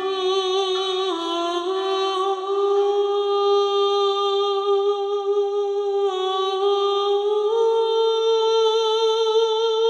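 Background music: a single wordless voice holding long, slow notes with vibrato, stepping to a new pitch about a second in, again about six seconds in, and rising near the end.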